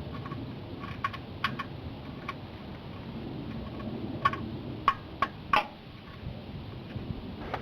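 A ratchet and socket on a car's oil pan drain bolt: about seven sharp, irregular metal clicks and clinks over a steady low background noise.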